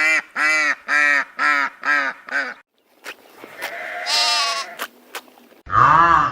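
A series of animal calls: six short, pitched cries in quick succession, then a longer, quieter call with a few clicks, and a loud cry starting near the end.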